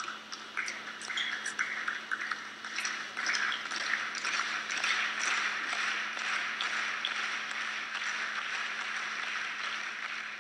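Tennis crowd applauding after a point: scattered claps in the first couple of seconds build to steady applause, easing slightly near the end.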